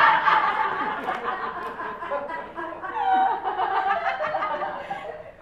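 An audience laughing, many voices at once, loudest at the start and dying away near the end.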